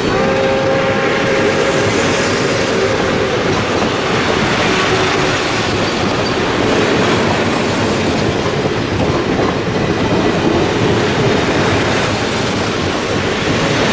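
Passenger coaches and a caboose rolling past at close range: a loud, steady noise of steel wheels on the rails. A steady tone rings over it during the first few seconds and fades.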